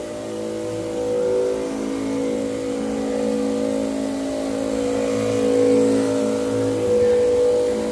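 Electric pump of a battery-powered backpack sprayer running steadily while spraying, a constant hum that swells and eases slightly.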